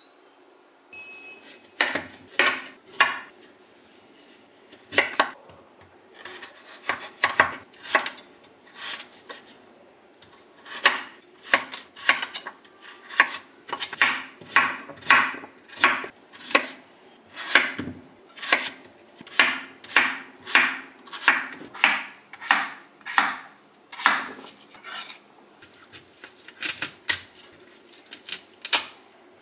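Kitchen knife cutting food on a wooden cutting board in steady strokes, about one or two a second, with a few short pauses.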